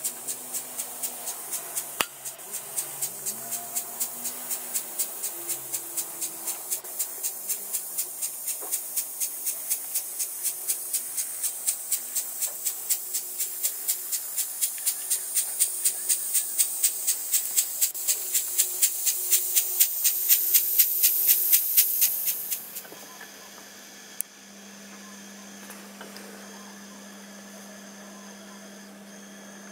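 Model train running: a regular clicking rhythm that quickens and grows louder, with a rising hiss, then stops abruptly. After it comes a quieter, steady low hum.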